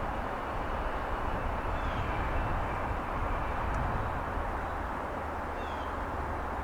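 Steady rushing outdoor background noise with a low rumble, and a few faint, short falling bird chirps about two and six seconds in.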